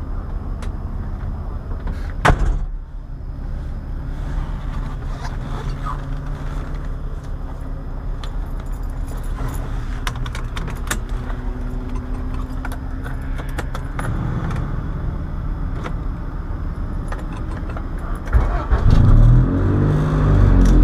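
Honda B20B four-cylinder engine idling, heard from inside the car's cabin, with a sharp thump about two seconds in and light clicking and jingling of a seatbelt buckle and keys in the middle. Near the end a louder engine revs up and down.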